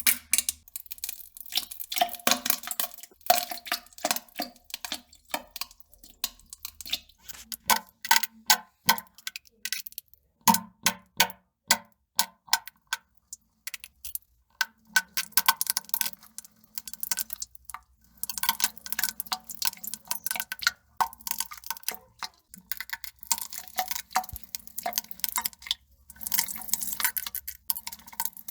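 Wet crackling and plopping of defecation: quick irregular pops and splats in clusters, broken by brief pauses.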